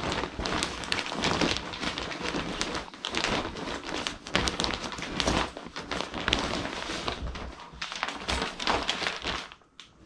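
Clean laundry being tipped out of a plastic bag onto a bed: the plastic crinkles and the clothes rustle close by, dying away just before the end.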